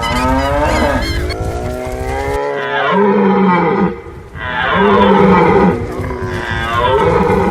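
Cattle mooing: a series of long, falling calls. A low rumble under the first calls cuts off suddenly about two and a half seconds in, after which three separate moos follow.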